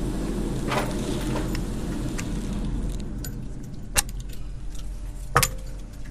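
Small metallic clicks and rattles as the magazine of an Edgun Leshiy 2 PCP air rifle is changed by hand, with a few sharp clicks, the clearest about four and five and a half seconds in. A low steady hum runs underneath.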